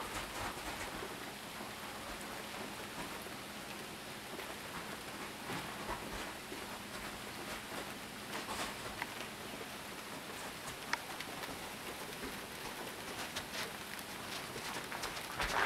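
Freezing rain falling steadily: an even hiss of drops pattering on ice-glazed branches and an icy deck, with a few sharp ticks.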